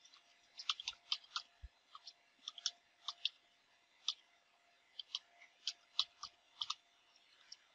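Computer keyboard keystrokes clicking in irregular runs of typing, a few keys a second with short pauses between words.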